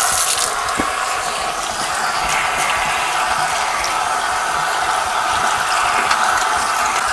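Kitchen faucet running steadily into the sink while hands are washed under it.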